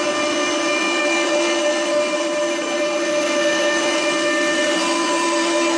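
Fulltek PA-3713 CNC machining center's spindle running at speed with its router bit cutting solid wood: a steady whine with several fixed tones over a constant rushing noise.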